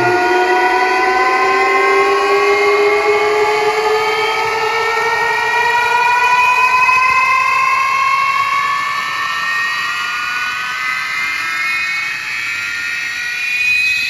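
Siren-like sweep effect played through a DJ sound system at sound check: one tone with overtones rising slowly and steadily in pitch, swelling briefly near the end.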